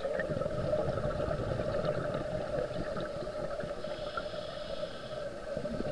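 Steady underwater background noise picked up by a camera in a housing: a constant hum over a low rumble, with a faint higher tone for a second or so past the middle.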